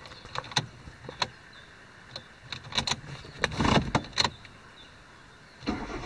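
Scattered sharp clicks and knocks of controls being handled in a car's cabin while the engine is silent. Near the end, a low rumble sets in as the Hyundai's engine starts.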